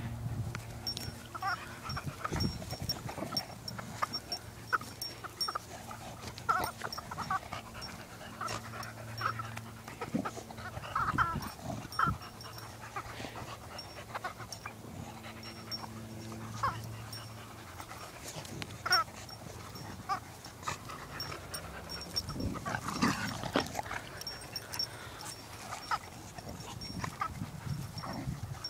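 Two dogs play-fighting, with short dog noises scattered irregularly throughout and a busier stretch a little past the middle.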